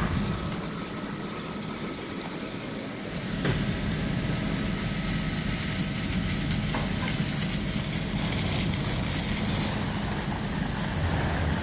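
Fire engine running steadily while pumping water to a hose stream, with a hiss of spray from the water. The engine noise gets louder about three and a half seconds in.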